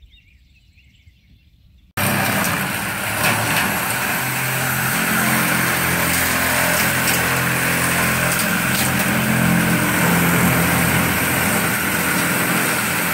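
Corded electric sheet-metal shears cutting a ribbed steel roofing panel, the motor running with a loud, harsh, steady cutting noise as a curled strip of metal peels off. It starts abruptly about two seconds in, after faint outdoor quiet.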